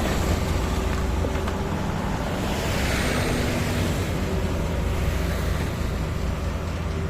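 Engine of heavy earthmoving machinery running steadily with a low rumble, with a swell of hissing noise about two to four seconds in.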